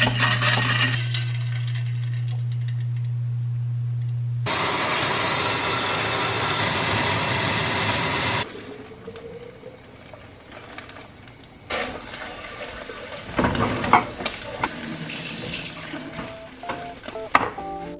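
Countertop blender running as it blends a green smoothie, its noise growing fuller about four seconds in and cutting off suddenly about eight seconds in. A few clinks and knocks follow.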